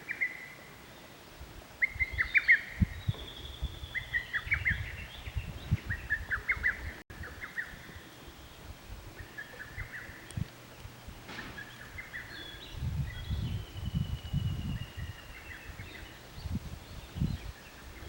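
Songbirds calling outdoors: groups of quick chirps repeat every second or so, with a long whistled note about two seconds in and another near the end. Low thumps and rumbles sound underneath, loudest about two seconds in and again around thirteen to fifteen seconds in.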